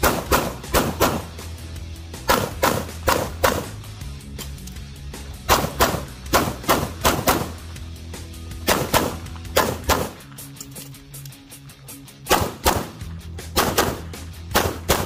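CZ Shadow 2 pistol fired in rapid strings, quick pairs and runs of four to six shots with short pauses between them, over background music with a steady bass.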